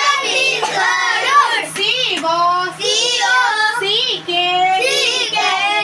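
Children's voices chanting in a sing-song rhythm, repeating a vocabulary line after the teacher, over a steady low hum.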